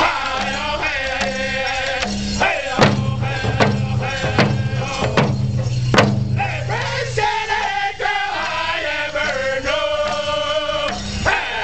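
A Native American hand drum group of men singing a round dance song in unison, beating handheld frame drums in a steady beat.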